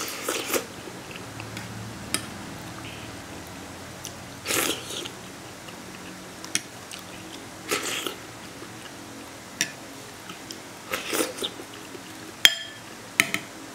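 A person eating soft pea-starch jelly noodles from a bowl with a spoon: a wet slurp and chewing every few seconds, with light clicks of the spoon against the bowl in between.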